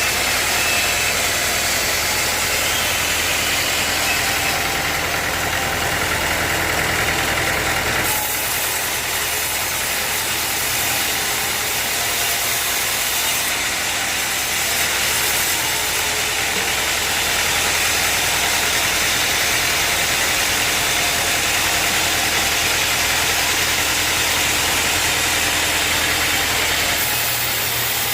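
Sawmill engine running steadily under a constant hiss, with abrupt shifts in the sound about a third of the way in and again near the end.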